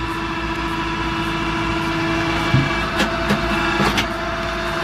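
A machine engine running steadily at an even pitch, with a few short knocks about halfway through.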